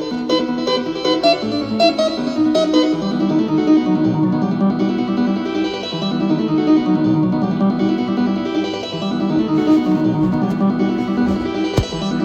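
Instrumental music with plucked string notes, with a sharp click near the end.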